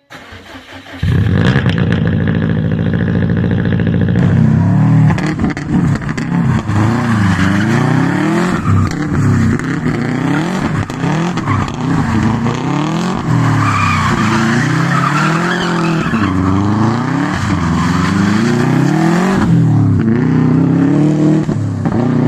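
Subaru Impreza rally car's 293-horsepower boxer engine. About a second in it comes in loud at a steady pitch. From about five seconds on it revs up and falls back over and over as the car is driven hard.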